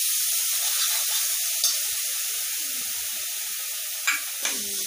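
Onion-garlic paste sizzling steadily as it fries in hot mustard oil in an aluminium kadhai, with a few short clicks of the steel stirring spoon against the pan.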